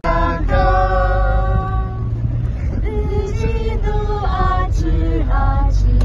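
Several voices singing a song together in long held notes, with the steady low rumble of the Mahindra Bolero's engine and road noise underneath, heard inside the cabin.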